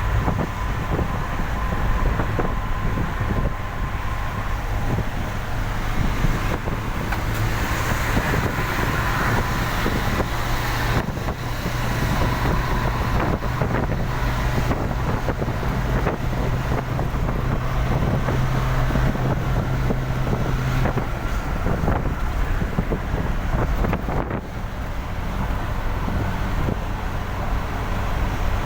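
A vehicle driving at speed on a rain-wet road: continuous tyre, road and wind noise over a low engine drone. A steadier engine hum stands out from about a quarter of the way in until about three quarters through.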